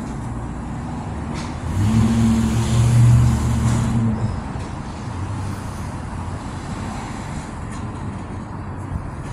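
Low rumble of road traffic, swelling as a heavy vehicle passes about two seconds in with a steady engine hum and a hiss, then settling back to the background rumble.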